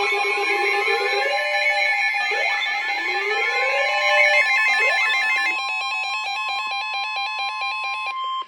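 Emergency Alert System-style attention tones sounding before a blizzard warning. Electronic rising sweeps repeat about once a second over a steady pitch near 1 kHz. About two-thirds of the way in, the sweeps give way to a rapid pulsing pattern, and the whole signal cuts off abruptly just before the end.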